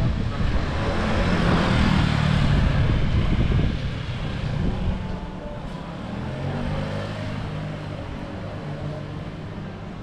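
A vehicle passing close by on a street, its noise swelling to a peak about two seconds in and fading by about four seconds, then a lower steady hum.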